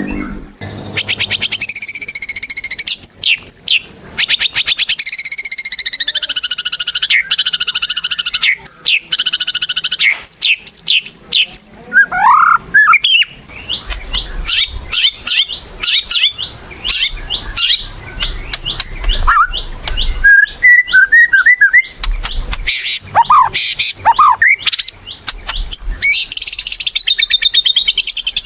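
White-rumped shama (murai batu) singing a long, varied song of clear whistles, rising slurs and fast runs of sharp repeated notes, ending on a high warble.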